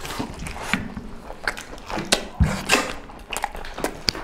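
Several people eating mutton by hand: chewing and biting mouth sounds, with scattered short clicks and taps.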